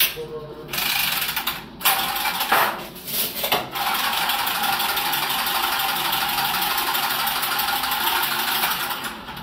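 Cordless power copper-tubing cutter running on copper pipe: two short whirs, then a steady whir for about five seconds as it cuts through the pipe.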